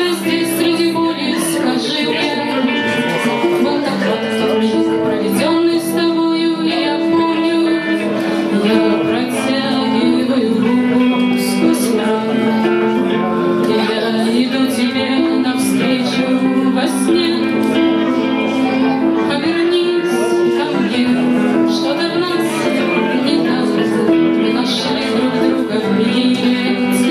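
Music: a song with guitar and singing, playing steadily throughout.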